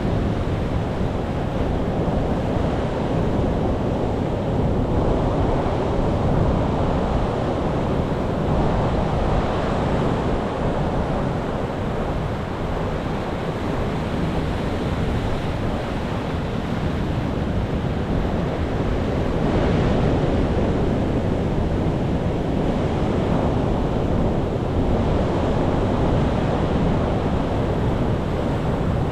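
Sea waves surging and washing in continuously, the rush swelling and easing every several seconds.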